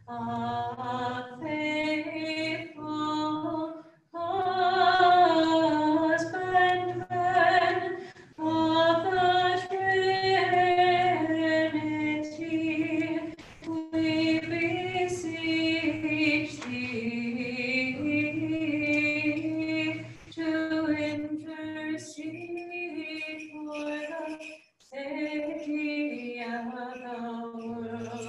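Unaccompanied Orthodox liturgical chant sung by a female voice, the text drawn out over long melodic phrases, with a short pause for breath about four seconds in and another near the end.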